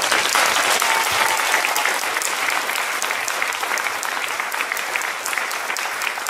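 A hall audience applauding: a dense crowd of hand claps that breaks out suddenly at full strength and slowly eases off.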